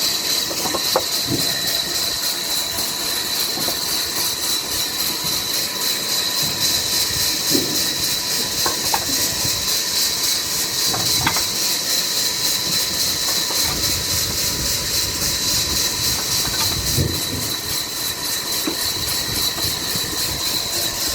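Sawmill machinery running steadily: a loud, even hiss with a high whine, and a few light knocks scattered through it.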